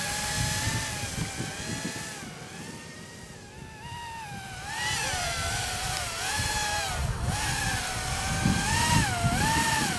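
EMAX Babyhawk micro 2S brushless quadcopter's motors and propellers whining in flight, the pitch repeatedly rising and falling with throttle changes. The whine fades for a couple of seconds early on and comes back louder around the middle.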